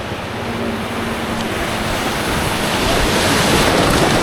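Creek water rushing around an inflatable kayak running down a mountain creek, growing louder about halfway through.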